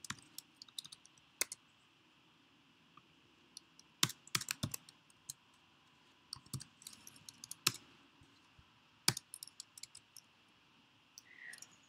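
Typing on a computer keyboard: irregular key clicks in short runs, with pauses between them.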